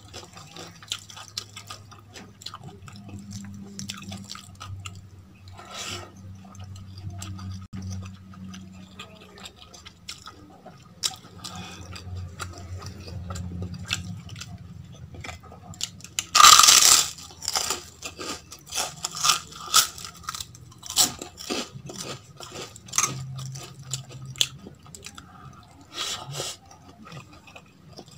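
Close-miked eating sounds: fingers squishing rice and rajma curry against a steel plate, and chewing with small wet clicks. A loud crunchy burst comes about sixteen seconds in and is the loudest sound, followed by a run of sharp clicks.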